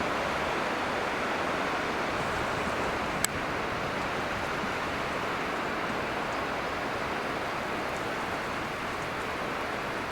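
Ocean surf breaking on a beach, a steady wash of noise, with one short click about three seconds in.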